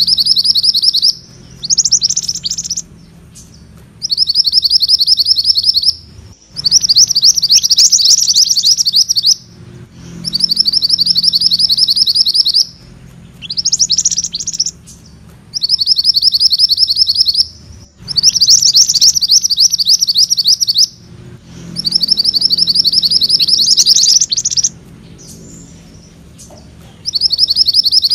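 Mantenan kuning songbird singing its rolling trill ('ngerol'): rapid, high trill phrases of one to three seconds, repeated with short pauses about every three seconds, with a few shorter chirps between them.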